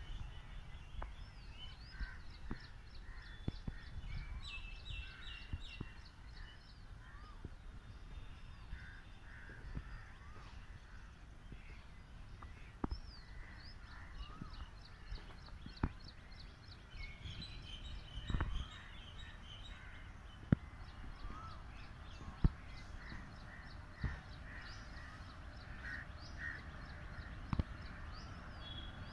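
Several birds calling and chirping, with quick runs of high chirps and some harsher calls, and a few sharp knocks, the two loudest about two-thirds of the way through.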